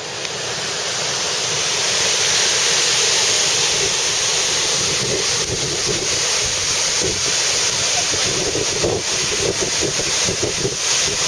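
Steady rushing roar of Wailua Falls, a 173-foot double waterfall, building over the first couple of seconds and then holding, with wind buffeting the microphone.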